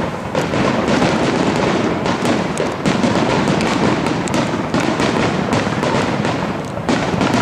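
Fireworks display: a dense, rapid barrage of overlapping shell bursts and crackling, with hardly a gap between reports.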